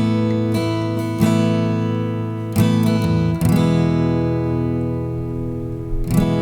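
Acoustic guitar playing slow strummed chords, each chord left to ring before the next strum.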